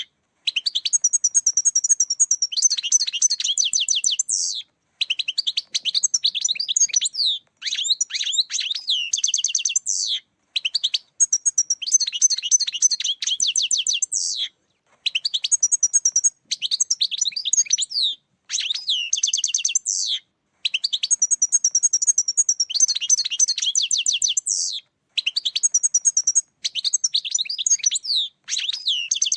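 European goldfinch singing: a long string of fast, high, tinkling twitters, broken into phrases of a few seconds with brief pauses between them.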